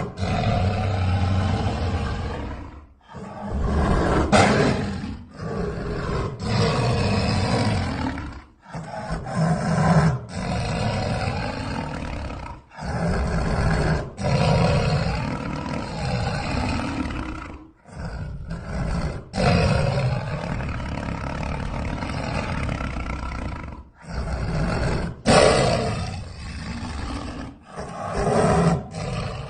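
Sound-effect growls of a giant lion-like monster cat: a string of deep big-cat growls, each a few seconds long, separated by short silent breaks.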